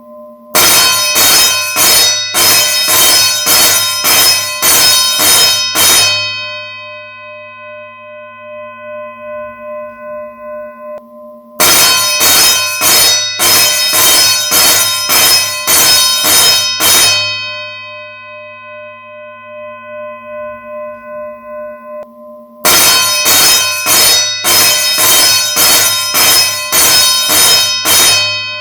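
School bell ringing in three bursts of about five seconds, each made of rapid strikes at about two a second. Between bursts the bell's tone keeps ringing and slowly fades.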